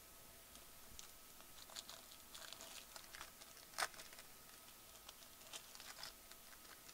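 Foil wrapper of a trading card pack crinkling and tearing as it is opened by gloved hands: faint scattered crackles, with one sharper snap a little before four seconds in.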